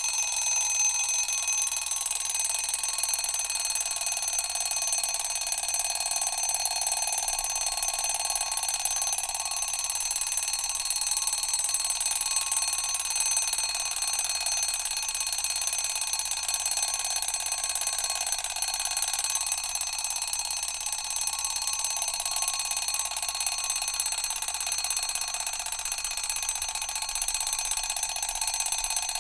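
Mechanical alarm clock ringing, its hammer rattling rapidly against the bell in one steady, unbroken ring.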